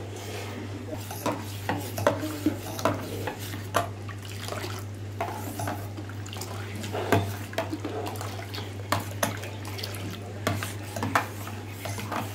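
A spoon stirring liquid in a vessel, with irregular clinks and knocks against its sides.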